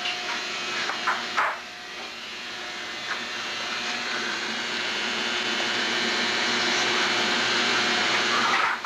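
A steady rushing, hissing noise that grows slowly louder for several seconds and then stops abruptly near the end.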